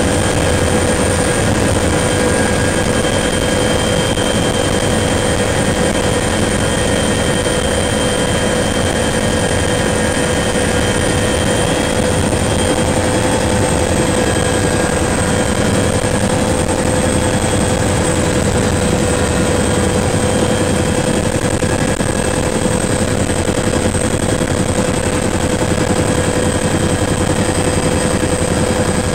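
Bell 212 helicopter in flight, heard from inside the cockpit: the twin-turbine engines and rotor make a steady, loud drone, with several steady high-pitched whines on top.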